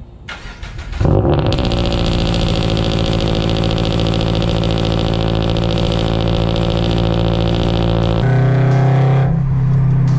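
Toyota GR86's 2.4-litre flat-four engine cold-started: the starter cranks briefly and the engine catches about a second in with a flare. It then runs at a steady fast idle that drops and settles about eight seconds in.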